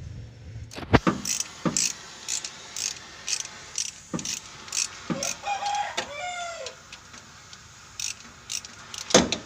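Metal clicks and knocks of hand tools working on the engine: a run of short, evenly spaced clicks about two a second, with a loud knock about a second in and another near the end.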